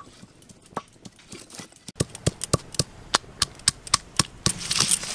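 Sharp stone-on-stone knocks, several a second from about two seconds in, as a stone pestle pounds ginger and green chillies on a flat grinding stone (shil-nora), with a gritty scraping near the end. Before that there are only a few scattered crackles from the wood fire under a covered wok.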